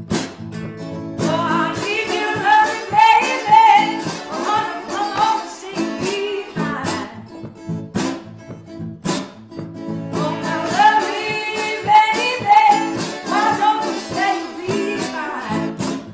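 Acoustic blues: a voice sings two phrases over strummed and picked acoustic guitar, with the guitar alone in the gap between them.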